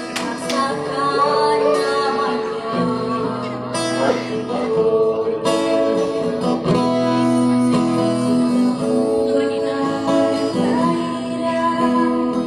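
Two voices singing a duet over classical guitar accompaniment, the singers holding long notes with vibrato over plucked and strummed chords.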